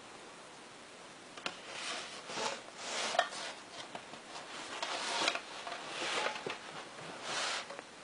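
Irregular rubbing and scraping with a few sharp clicks and small knocks, like handling noise, starting about one and a half seconds in. No bell is ringing.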